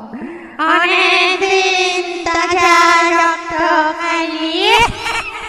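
Eerie wailing voice, high and held on one note with a wavering vibrato, sliding up in pitch near the end: a ghostly moaning or singing horror sound effect, with a few sharp clicks under it.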